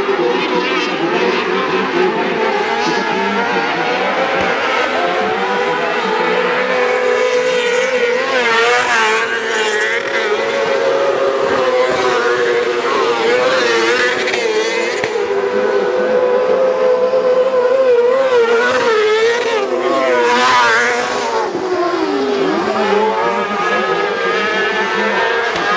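Junior autocross buggies racing on a dirt track, their engines revving up and down as they accelerate and brake through the corners, with several engines overlapping. One engine's pitch drops sharply a few seconds before the end.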